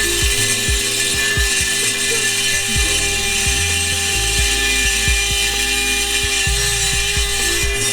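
Dremel 4000 rotary tool running at a steady high speed with a sanding pad grinding down the cracked metal end of an exhaust pipe: a steady whine over a harsh grinding hiss, with irregular low knocks underneath.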